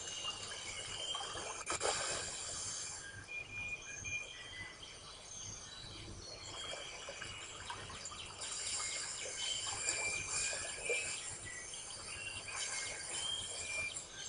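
Forest ambience of many short, high bird chirps and whistles with insects, over a steady hiss. A sharp click comes about two seconds in.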